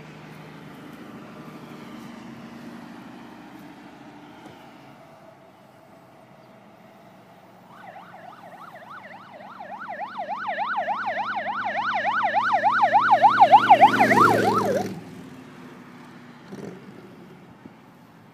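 Emergency vehicle siren in a fast yelp, wavering up and down about four times a second, growing steadily louder over several seconds and then cutting off suddenly. A low, steady hum of highway traffic runs before and after it.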